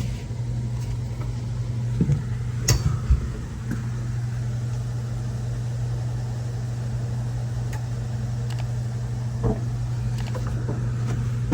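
Frigidaire side-by-side refrigerator running with a steady low hum, with a few light clicks and knocks in the first few seconds and one more near the end.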